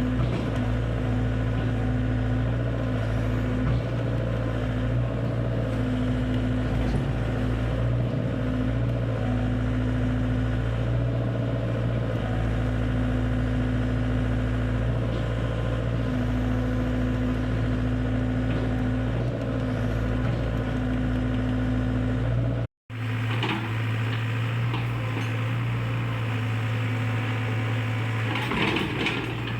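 Diesel engine of an XCMG XE60GA excavator running steadily with a deep hum. The sound cuts out for an instant about three-quarters of the way through, then resumes with some clanking near the end.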